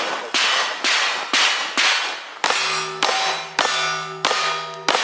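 Nine rapid gunshots about half a second apart, each striking a steel target that clangs and rings. From about halfway the struck steel plates keep ringing with steady tones between hits.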